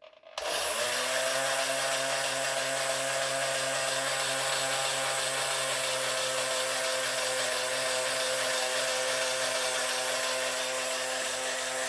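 Small battery-powered motor of a vintage toy jigsaw switched on about half a second in, spinning up and then running with a steady hum and hiss.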